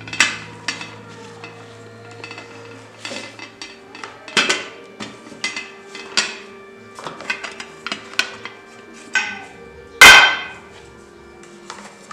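A metal kettle and kitchenware being handled: a string of clinks and knocks of metal on metal and on the counter, the loudest about ten seconds in.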